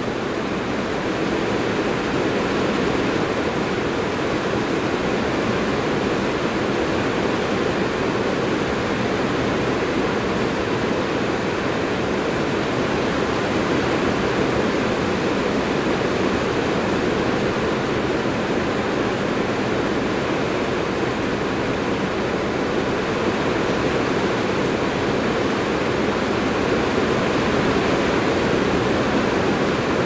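Strong rain falling steadily on a metal roof: a dense, even rush of noise with no breaks or changes.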